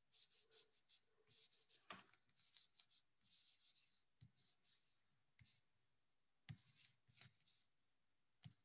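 Faint, irregular tapping and clicking of a computer keyboard and mouse, with a few slightly louder clicks scattered through.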